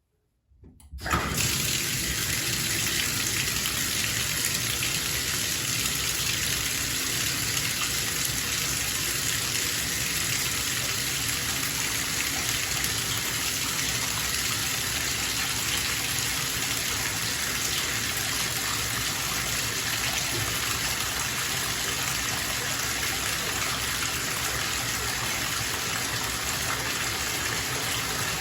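Bathtub tap running, water gushing steadily into the tub as it fills. It starts suddenly about a second in and holds steady.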